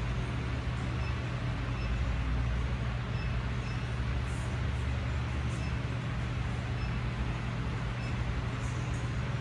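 Steady low mechanical hum, with faint short electronic beeps now and then from the gym's digital interval timer as its buttons are pressed to set it.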